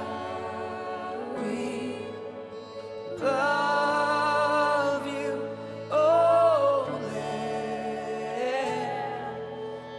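Live worship song: a male vocalist sings slow, drawn-out lines over a sustained, held instrumental backing. He swells into two loud held notes, one about three seconds in and a shorter one about six seconds in.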